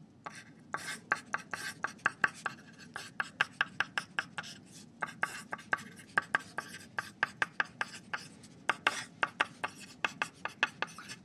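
A quick, uneven series of sharp clicks or taps, about three to four a second, with a brief pause about four and a half seconds in, over a faint low hum.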